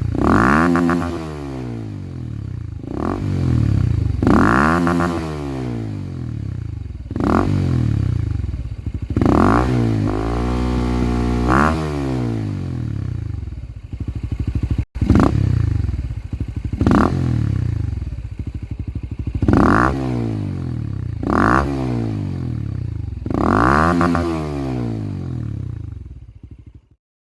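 Honda RS150R's single-cylinder four-stroke engine, through a GL exhaust, revved in about a dozen short blips that rise and fall in pitch between spells of idle. A brief cut near the middle, and the sound fades out just before the end.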